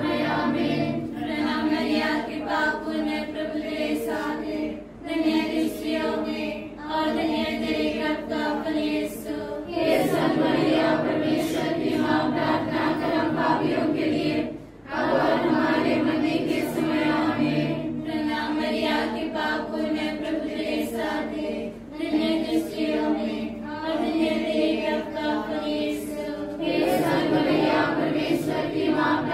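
A group of voices singing a devotional hymn in unison without accompaniment, in long held phrases with brief breaks between lines.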